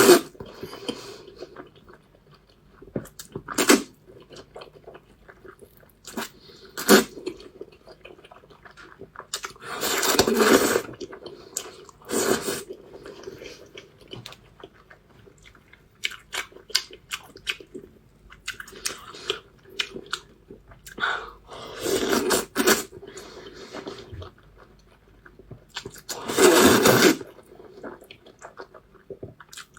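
A person chewing and crunching a mouthful of a cold dressed Chinese dish close to the microphone: irregular short crunches, with a few longer, louder stretches of noise around a third of the way in and again near the end.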